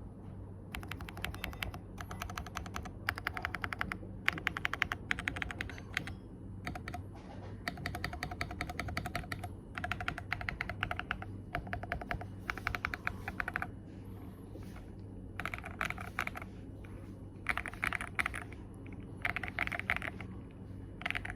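Computer keyboard keys pressed in quick runs of clicks, each about a second long with short pauses between, over a low steady hum. The larger keys, backspace, enter, spacebar and shift, are among those being tapped, and the runs near the end are louder.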